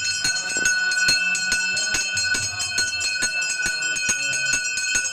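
A temple hand bell rung rapidly and continuously during worship at the altar, about seven strokes a second, its bright ringing tones carrying on between strokes.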